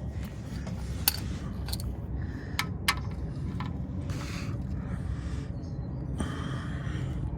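Several sharp metallic clicks and clinks in the first three seconds as a wrench loosens the oil drain plug under the car, over a steady low rumble.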